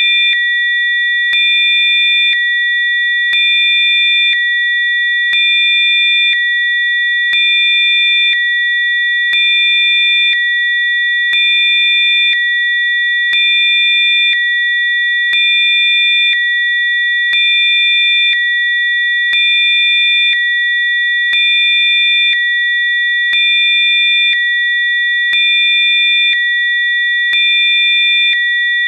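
Electronic sine tones of a Rife frequency program: several steady high pitches sound together, with fainter tones switching on and off about once a second, so the level pulses gently every two seconds.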